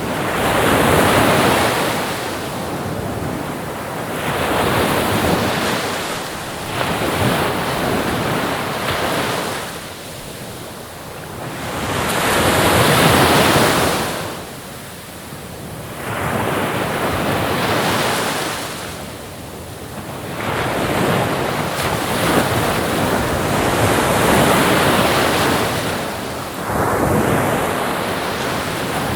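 Ocean waves breaking and washing in surf, swelling and fading in a slow rhythm with a surge every few seconds, the biggest about halfway through.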